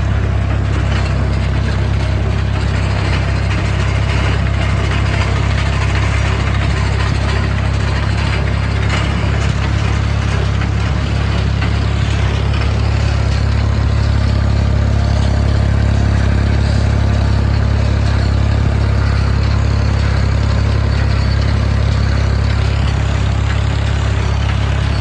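Tractor engine running steadily while pulling a baler through wheat straw.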